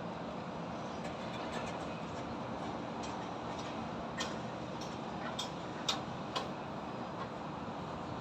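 Steady hum of highway traffic and city noise, with a run of five sharp knocks about half a second apart around the middle, typical of metal being struck on a construction site.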